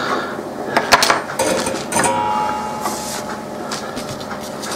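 Steel tweezers and a soldering iron being handled on a workbench mat: sharp clicks and taps about a second in, then a brief ringing tone about two seconds in, followed by light rustling.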